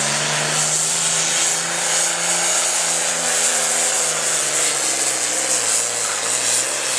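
John Deere Super Farm pulling tractor's turbocharged diesel engine running flat out under load while dragging a weight-transfer sled, with a dense hiss and rush over the engine note. The engine pitch holds steady, sags about five to six seconds in as the tractor bogs under the sled's load, then picks up slightly again.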